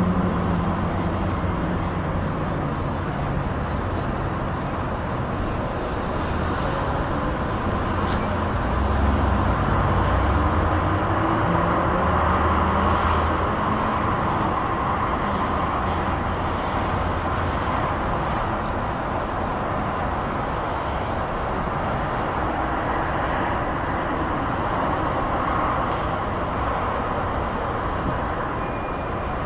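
Continuous distant motorway traffic: a steady wash of tyre and engine noise that swells gently as heavier vehicles pass, about a third of the way in and again near the end.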